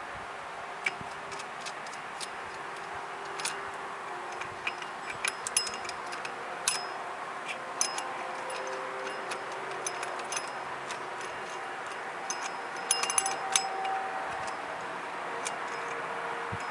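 Irregular sharp metallic clicks and clinks from the kick-start ratchet parts of a Yamaha Jog scooter being handled, over a steady hiss. The clicks come in small clusters, the loudest bunch near the end.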